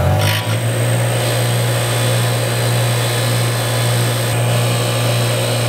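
Bench grinder running with a steady hum while its brass wire wheel brushes rust and dirt off a steel brake caliper slider pin held against it, with a constant hissing scrape.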